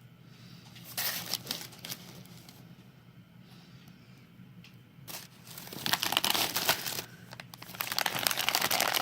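Plastic snack packaging crinkling as it is handled, with a brief crinkle about a second in and longer, louder stretches of crinkling from about five seconds in.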